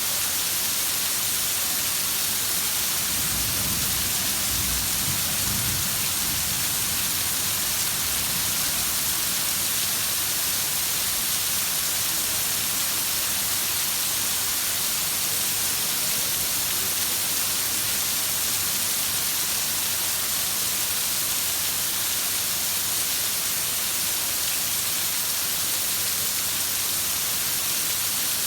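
Heavy rain falling, a steady, even hiss. A brief low rumble comes about three seconds in and fades by about seven seconds.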